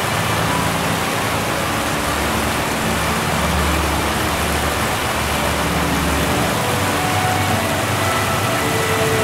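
Water spilling over the rim of a circular water-dividing weir, a steady rushing of falling water. A low rumble joins it for a few seconds mid-way, from a car passing on the road beside it.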